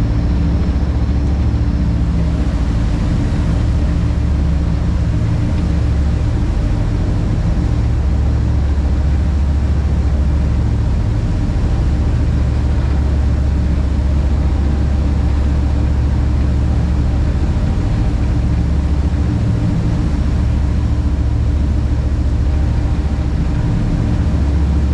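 A fishing boat's engine running steadily underway, a loud low drone, with the rush of the churning wake behind the stern.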